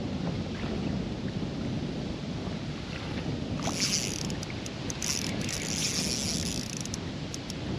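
Wind buffeting the microphone over choppy lake water lapping at a kayak. From about three and a half seconds in, a fishing reel whirs and clicks as line is worked against a freshly hooked fish on the bent rod.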